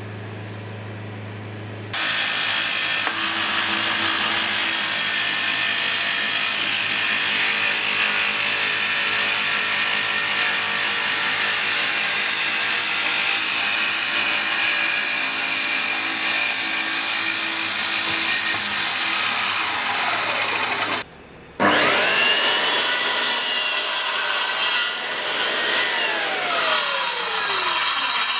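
A power tool working wood. After a low hum, a loud steady rasping noise starts about two seconds in. It breaks off briefly near two-thirds of the way through, then returns with whining tones that rise, hold, and later fall as the tool's speed changes.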